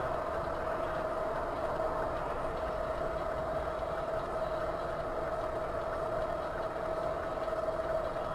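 Steady vehicle engine and road noise, with one constant tone running through it.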